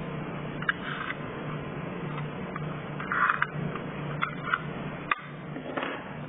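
Scattered small clicks and brief scrapes of hand work on a car's tailgate parts, over a steady low hum.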